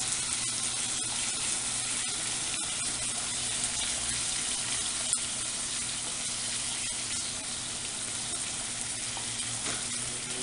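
Pork chops sizzling in a nonstick frying pan, a steady hiss, with a few light taps as barbecue sauce is brushed and squeezed onto them.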